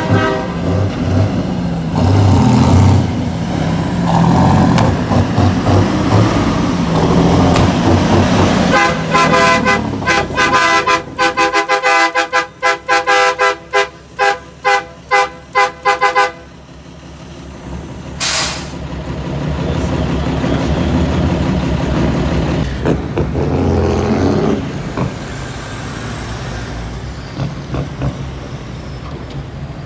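Semi-truck engines running, with a horn tooted in a quick run of short blasts for several seconds in the middle, then a brief hiss of air. After that an engine note rises and then eases off.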